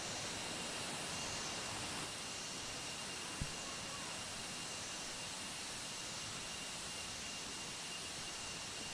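Steady, even outdoor hiss with a faint constant high tone through it, and one soft click about three and a half seconds in.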